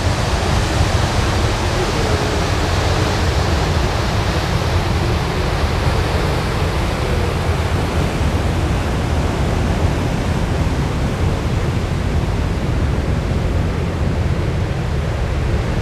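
Wind rushing steadily over the microphone on the deck of a moving ferry, a deep buffeting rush mixed with the wash of the sea.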